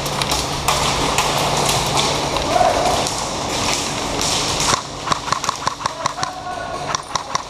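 Handling and movement noise from an airsoft player moving about with a rifle. Near the end comes a run of sharp, irregular clicks and taps.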